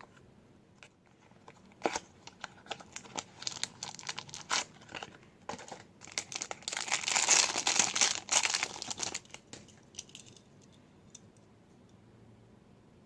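Toy packaging being torn open and crinkled by hand: scattered crackles that build into a dense, loud crinkling burst a few seconds in, then die away.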